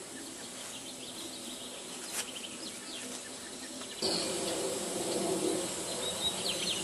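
Outdoor background of insects and chirping birds, with a brief click about two seconds in and a louder steady noise joining about four seconds in; the whistle is not sounding.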